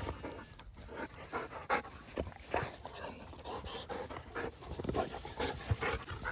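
A dog panting in short, quick breaths.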